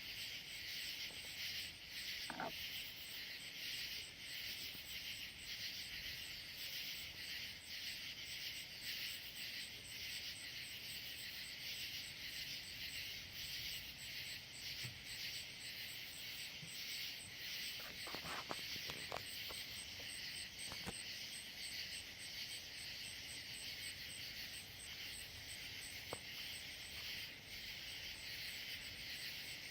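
Steady summer night chorus of crickets and other insects: a dense high hiss with a rapid, even pulsing trill on top. A few faint brief chirps stand out, one about two seconds in and a cluster a little past the middle.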